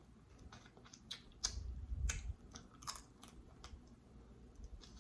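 Snow crab legs being eaten close to the microphone: scattered sharp clicks and crackles of the shell being cracked and picked, with chewing.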